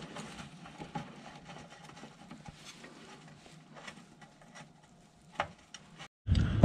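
Faint, irregular small metallic clicks and taps of a socket on an extension being turned by hand, threading an engine oil drain plug back in, with one sharper click about five seconds in.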